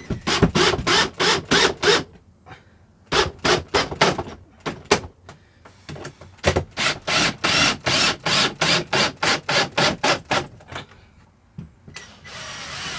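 Cordless drill driving screws into ceiling panels, in quick pulses about four a second, in several runs with short pauses between them. A steadier hiss comes near the end.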